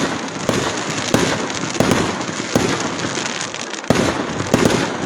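Fireworks display: a quick run of booms and bangs, about one or two a second, over steady crackling, with a heavier burst about four seconds in.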